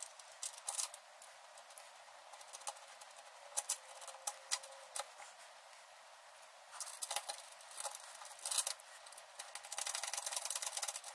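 Light metallic clicks and taps of bolts, nylock nuts and a steel caliper bracket being handled and the nuts threaded on by hand. The clicks come singly at first, then in a quicker run over the last few seconds.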